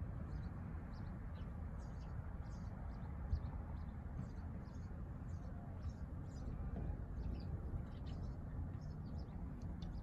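Small songbirds chirping, many short high chirps in quick succession, over a steady low rumble.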